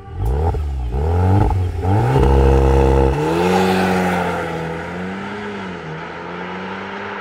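VW Golf R Mk8's turbocharged four-cylinder through an Akrapovic exhaust, accelerating hard: the revs sweep up several times in quick succession, loudest between two and three seconds in. The pitch drops suddenly about three seconds in, then the engine note holds with slight wavers and fades as the car drives away.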